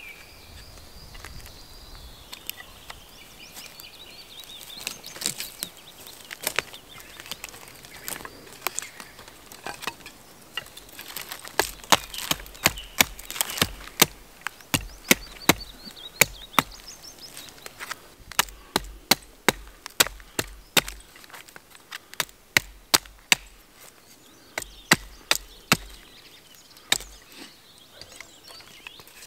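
Small hatchet chopping at the end of a wooden stick held upright on a log, shaving it to a point. Sharp chop strikes come sparsely at first, then in quick runs of two or three a second with short pauses between.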